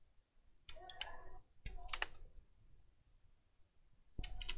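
Clicks and small clatters of laptop parts being handled during disassembly, in three short bursts: about a second in, about two seconds in, and near the end.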